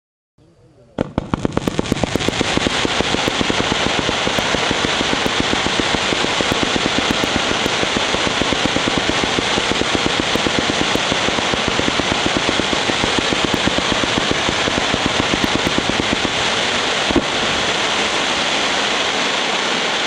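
A Crown Pyrotechnics 130-shot fan-shaped fireworks cake firing in rapid succession, several shots a second, under the dense crackle of its crackling chrysanthemum tails. It starts about a second in and keeps a steady pace, with one louder bang late on.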